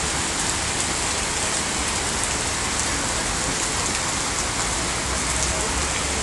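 Rain falling steadily: a dense, even hiss with fine patter of individual drops.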